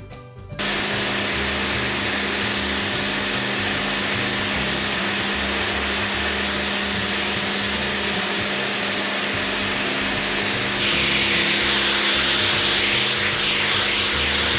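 Karcher K2 Compact electric pressure washer switching on abruptly and running steadily, its motor and pump making a hum under a broad hiss of spraying water. About eleven seconds in it gets louder and hissier.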